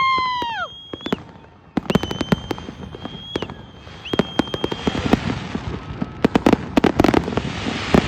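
Fireworks going off in rapid cracks and bangs, more densely in the second half. In the first five seconds shrill whistles sound over them: one held about a second and then falling away, and two more steady ones after it.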